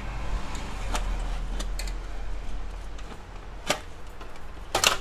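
Clicks and snaps of the printer's plastic housing latches being worked open. A few faint clicks come first, then two sharp ones: one a little before four seconds and the loudest, a quick cluster, near the end. A low steady hum runs underneath.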